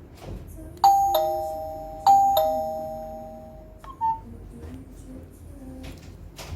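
Electronic doorbell chime ringing a two-note ding-dong twice, a higher note then a lower one each time, the notes ringing on and fading. A short beep follows about four seconds in.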